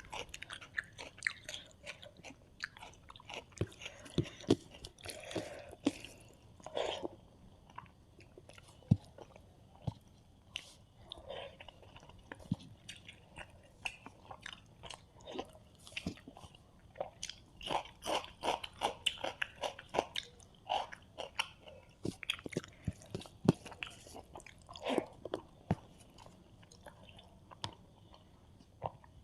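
Close-miked chewing and biting: irregular wet crackles and crunches with mouth smacks, as someone eats rice with fried fish and curry.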